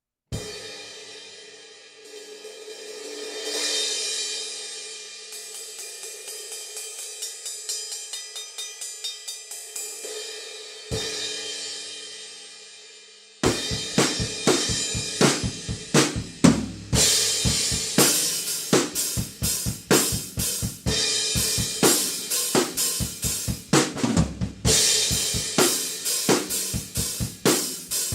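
Zildjian 18-inch S Medium Thin crash cymbal: one strike left to ring, then a swell building up, a run of rapid light strokes and a second ringing crash. From about halfway through, a full drum kit beat is played with the crash accenting it.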